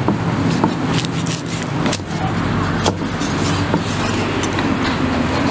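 Meat cleaver chopping through smoked pork onto a wooden chopping board: several sharp, irregularly spaced knocks over a steady low hum.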